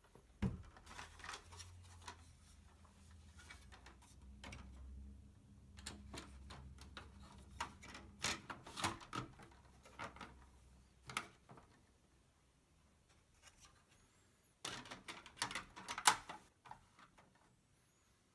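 Faint scattered clicks and taps of plastic toy parts being handled and snapped together, in short clusters near the start, through the middle and again near the end. This is the hand reassembly of the elevator on a 1970 Hot Wheels Tune-Up Tower.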